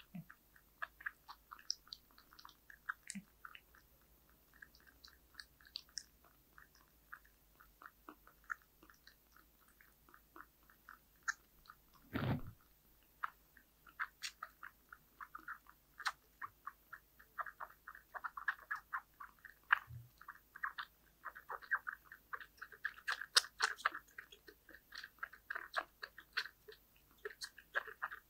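Kitten suckling formula from a small nursing bottle: rapid, irregular wet smacking clicks of its mouth working the nipple, growing busier in the second half. One dull thump about twelve seconds in.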